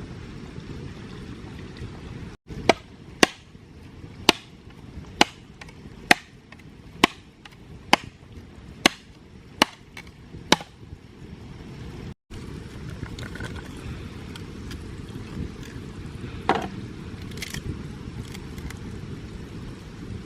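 Chopping, about ten sharp strokes a little under a second apart, over a steady low rushing background. After a cut, a few lighter knocks and one thump.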